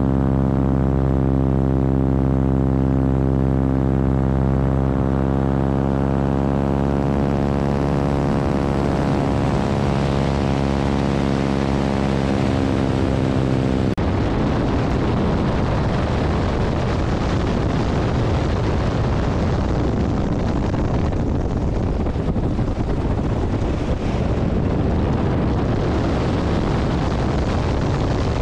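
Radial engine and propeller of a biplane in flight: a loud, steady drone that shifts slightly in pitch, with rushing wind. About halfway through it changes abruptly to a rougher, noisier rush with little of the engine's tone.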